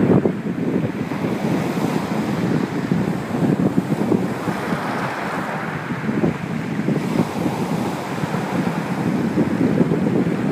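Sea waves breaking and washing up the shore, a continuous churning rush, with wind buffeting the microphone.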